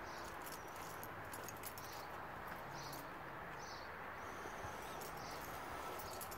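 Footsteps scuffing on pavement, with small clicks, over a steady background hum.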